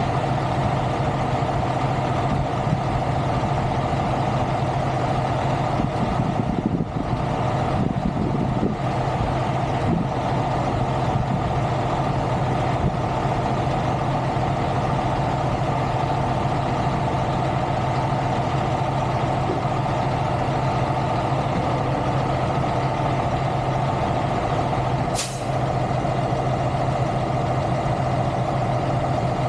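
Heavy diesel truck engine idling with a steady hum. A brief sharp hiss sounds once near the end.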